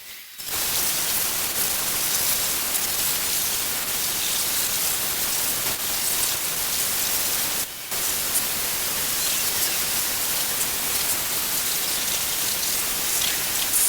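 Steady spray of water hitting a car during a wash, with a brief break just before the eight-second mark.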